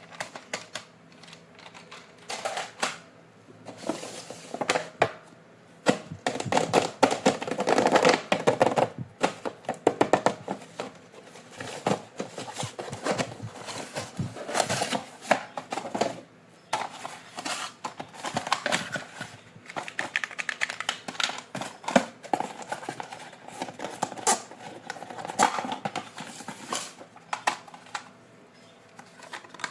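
Irregular clicks, knocks and rustling of hands handling plastic toy parts and packaging during an unboxing.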